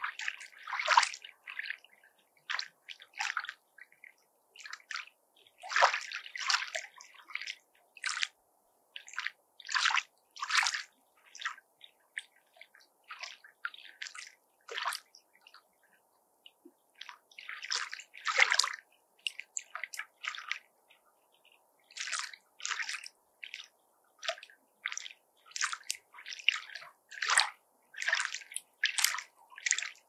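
Small lake waves lapping at the shore: short, irregular splashes and sloshes, sometimes in quick clusters, with brief gaps between.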